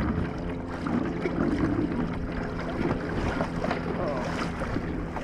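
Electric kayak motor running steadily with a faint, even hum, with water washing along the hull as the kayak moves.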